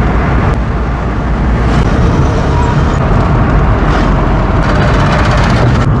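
Car driving at highway speed, heard from inside the cabin: a loud, steady mix of engine, tyre and wind noise with a deep rumble underneath. A rapid ticking rattle comes in for about a second near the end.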